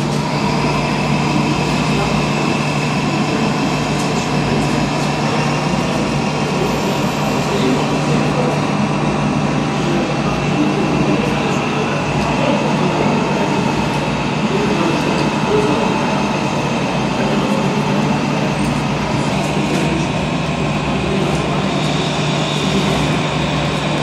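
Steady hall background: a constant low hum under a busy murmur of distant voices, with no distinct events standing out.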